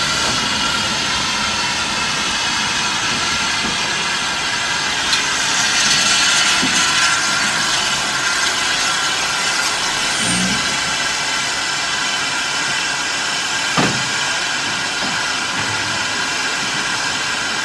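Steady loud hiss of steam escaping from the narrow-gauge steam tank locomotive GWR 823 "Countess". The hiss swells for a few seconds about six seconds in, with two short sharp knocks, one about five seconds in and one near fourteen seconds.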